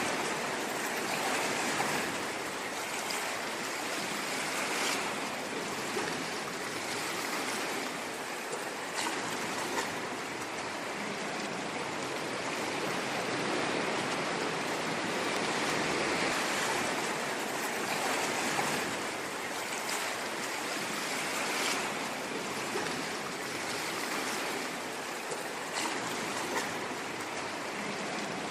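Ocean waves breaking and washing in: a continuous rush of surf that gently swells and eases, with a few brief splashes.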